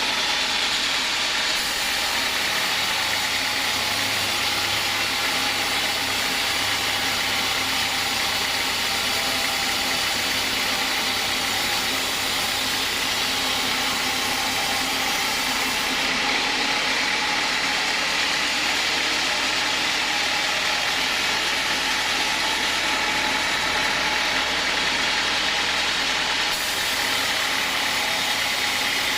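A homemade sawmill machine running steadily: an even, constant mechanical noise with no breaks.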